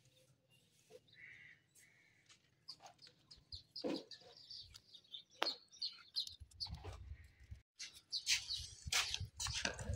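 Bird chirping in short, repeated high calls, starting about two and a half seconds in, with a few sharp clinks of a spoon against a bowl; a low rumble comes in for the last few seconds.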